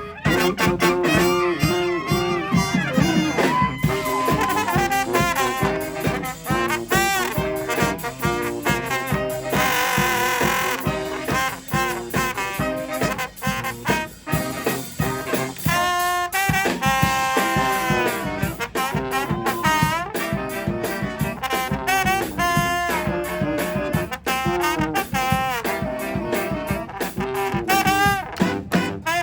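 A live brass band playing an upbeat tune: horns carrying a shifting melody over a steady, driving beat.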